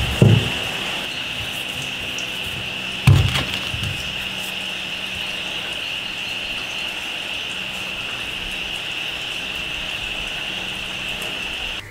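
Steady rain falling at night, a constant hiss with a high, even edge to it. Two dull thuds break through, one right at the start and one about three seconds in.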